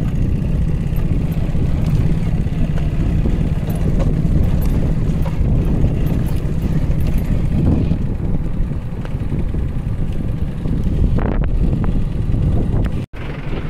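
A vehicle driving along a rough dirt road, heard as a steady, loud rumble of engine and road noise that drops out for an instant near the end.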